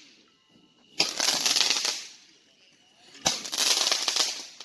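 Consumer fireworks going off in repeated bursts, each starting suddenly and trailing into about a second of dense crackling hiss; two full bursts, about a second in and just past three seconds in.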